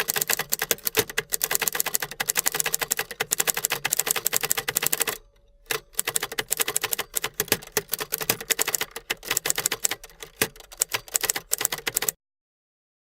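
Rapid, continuous typewriter-like clicking, with a short break about five seconds in, cutting off abruptly near the end.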